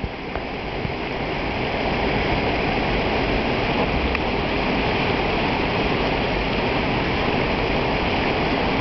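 Waterfall water rushing steadily, an even wash of falling water that grows louder over the first couple of seconds and then holds level.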